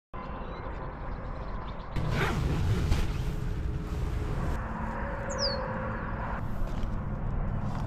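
Outdoor ambience: a low rumble that changes abruptly several times, and a single bird's short falling whistle about five seconds in.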